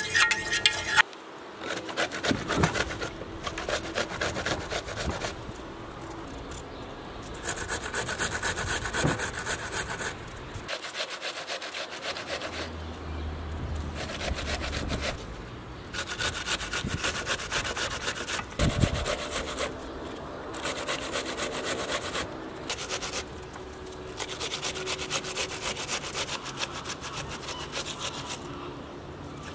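Rapid repeated scraping strokes of food being rubbed across a hand grater, in several stretches broken by short pauses.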